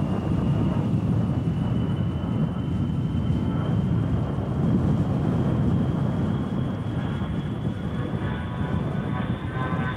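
A-10 Thunderbolt II's twin TF34 turbofan engines in flight: a steady deep rumble under a thin high whine that slowly rises in pitch, then drops off near the end.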